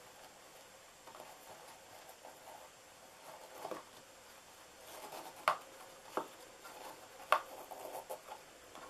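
Ribbon and a small cardstock box rustling in the hands as a ribbon bow is tied, with a few sharp clicks or snaps in the second half.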